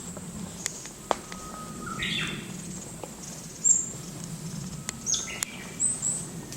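A male Japanese paradise flycatcher calling: two short phrases, one about a second in and one about five seconds in, each stepping between a lower and a higher note, with brief high chirps in between. A few sharp clicks and a steady low hum lie under the calls.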